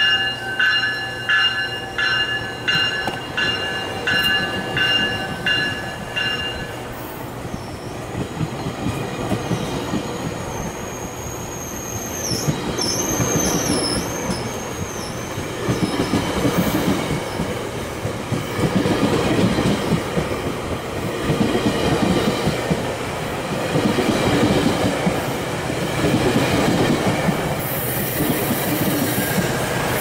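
GO Transit bilevel commuter coaches rolling past close by, wheels clacking over rail joints. For the first several seconds a bell rings in steady strokes, about three every two seconds. Then a thin, wavering wheel squeal comes in, and the rumble and clacking grow louder toward the end.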